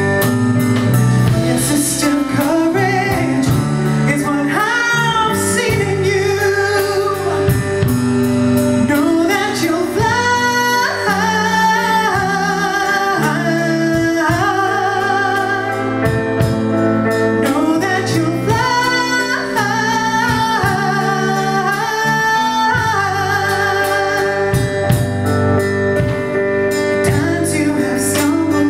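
Live soul band: a woman sings lead with held, wavering notes over electric guitar, bass guitar and drums.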